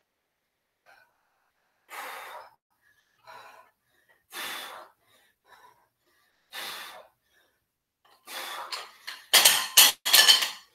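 A woman's heavy breathing during a dumbbell workout: spaced breaths about every two seconds, turning louder and quicker near the end.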